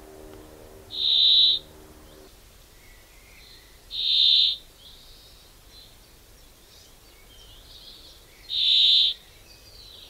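Three loud, high-pitched single-note bird calls, each about half a second long and a few seconds apart, with faint twittering of other birds between them.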